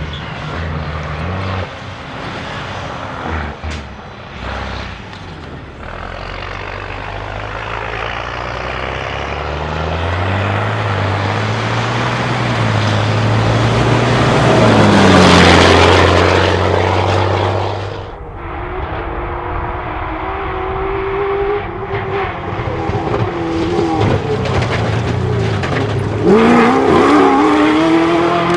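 Rally-raid vehicle engines running hard at speed. One grows steadily louder to a close, loud pass about halfway through, then the sound cuts off abruptly. Near the end another engine revs with rising pitch.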